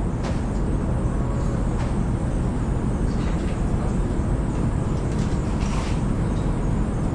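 A machine running steadily with a low rumble, with a few faint knocks.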